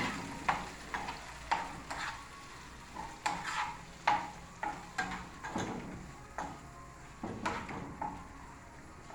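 Chopped scallion, carrot, sweet pepper, thyme and tomato sautéing in a hot pan, sizzling, while a spoon stirs them and knocks and scrapes against the pan about once or twice a second.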